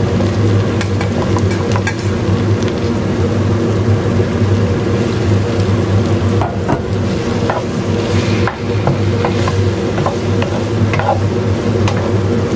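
Wooden spatula stirring and scraping food that is sizzling in a frying pan, with short clicks and scrapes of the spatula against the pan, over a steady low hum.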